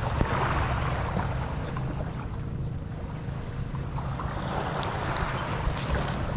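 Surf washing on a beach, rising and falling in two swells, with wind rumbling on the microphone. Light crackles near the end come from rope and netting being pulled and cut with a knife.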